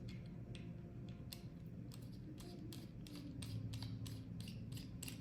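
Small T5 Torx screwdriver backing out tiny fine-thread screws from the plastic tracker housing: a run of light, irregular clicks, several a second.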